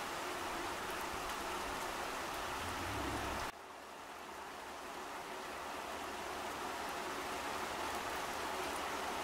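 Steady rain falling on leaves, an even hiss with a few faint drip ticks. It drops abruptly about a third of the way in, then slowly swells back.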